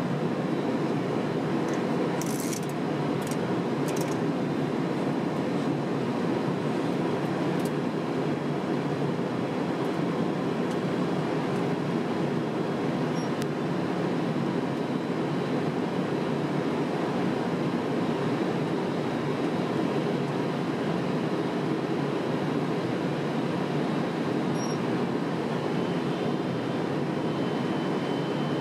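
Steady cockpit noise of a Boeing 767 in flight on approach: an even rush of airflow and engines, with a few light clicks about two to four seconds in.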